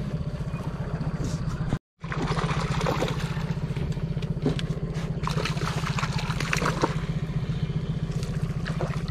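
Boat's outboard motor running steadily with an even low hum, the sound cutting out completely for a moment about two seconds in.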